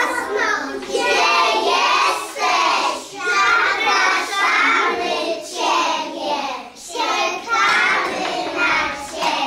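Young children singing a song together in short repeated phrases.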